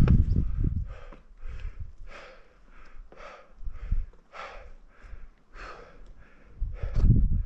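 A person breathing hard in quick, regular breaths in and out, with the effort of scrambling up rock. A low rumble buffets the microphone at the start and again near the end.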